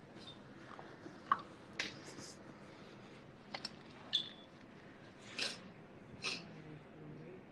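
Hairdressing scissors snipping through elevated sections of wet hair: a series of short, sharp snips spaced irregularly, roughly a second apart, with a couple of slightly longer cutting strokes near the end.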